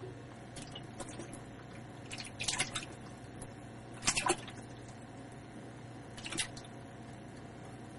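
American bullfrog splashing in a shallow tub of water as it lunges at feeder fish: three short bursts of splashing, the loudest about four seconds in.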